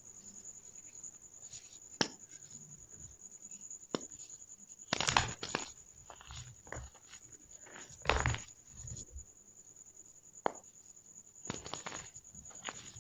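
Plain Jane gym chalk balls being crushed and crumbled, giving irregular crunches and crackles, with two sharp cracks early on and louder crunching bursts about five, eight and eleven and a half seconds in.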